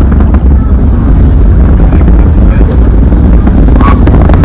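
Distant Falcon 9 rocket's nine Merlin first-stage engines: a loud, steady, deep rumble as the rocket climbs after liftoff, mixed with wind buffeting the microphone.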